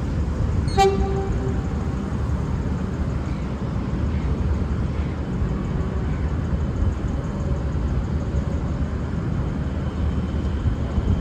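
Horn of a Siemens Nexas electric suburban train giving one short low-note toot about a second in, over a steady low rumble.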